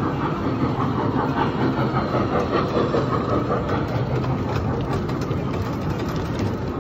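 Small trackless tourist road train driving slowly past, its motor running with a steady low hum.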